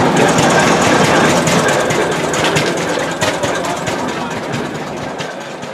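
Engine running and the vehicle clattering and rattling, heard from aboard a moving open wagon ride; it gets somewhat quieter toward the end.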